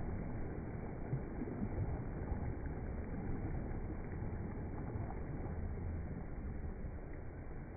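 Small waves breaking and washing up a sandy beach: a steady, low rushing surf noise.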